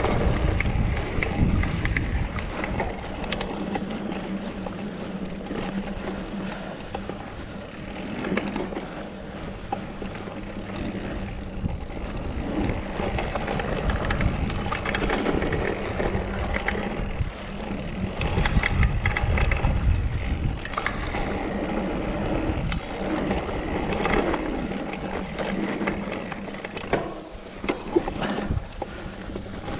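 Mountain bike riding fast down a dry dirt singletrack: knobby tyres crunching over loose dirt and ruts, the frame and front suspension fork clattering over bumps, with wind buffeting the microphone.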